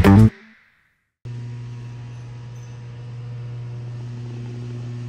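A music track ends abruptly. After a moment of silence, a steady low electrical hum with fainter higher overtones starts a little over a second in and holds unchanged.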